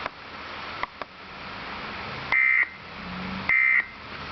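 Emergency Alert System end-of-message signal: two short buzzy digital data bursts (the SAME 'NNNN' code that closes an EAS message), about a second apart, over a steady background hiss.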